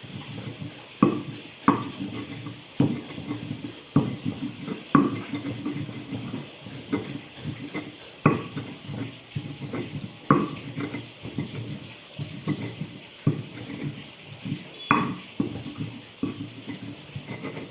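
Stone pestle grinding chili sambal in a stone mortar (ulekan and cobek). Rough grinding strokes are broken by sharp knocks of stone on stone every second or two.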